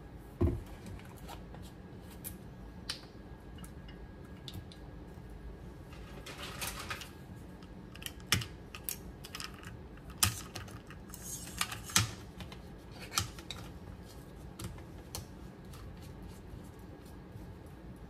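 Irregular light clicks, taps and a few sharper knocks of small items being handled on a kitchen counter, with two brief scratchy passages.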